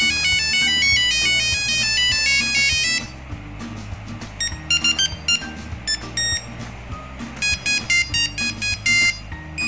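Nokia 3310 monophonic ringtones previewing one after another through the phone's buzzer. A fast run of high beeping notes plays for about three seconds and stops, then short snatches of other tunes start and break off as the ringtone list is scrolled.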